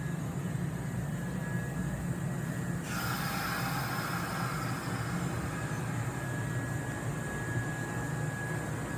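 Kintetsu 8810-series electric train, with MF77/78 cars coupled on, rolling slowly past the platform: a steady low rumble. A hiss starts suddenly about three seconds in and fades over the next couple of seconds.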